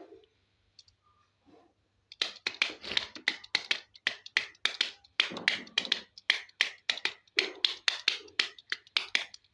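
Quick sharp tapping and clicking, about four to five taps a second, starting about two seconds in after a near-silent pause. This is typical of plastic toy animal figures being handled and tapped.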